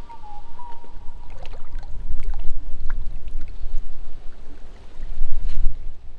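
Shallow water splashing and lapping around hands as a bass is released at the shoreline, with scattered small drips and clicks over a heavy low rumble that swells twice.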